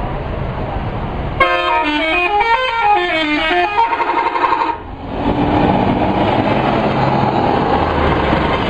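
Bus 'telolet' musical horn: several pitched horns come in suddenly about a second and a half in and play a short stepping up-and-down melody for about three seconds. Then a steady noisy sound with no tune takes over.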